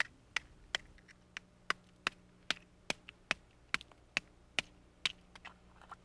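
A hand-held stone knocking repeatedly on oyster shells: sharp, short strikes, about two to three a second, a little softer toward the end.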